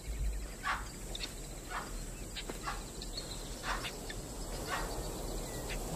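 Short, sharp animal alarm calls repeating about once a second, given by the herd that has spotted a stalking lion.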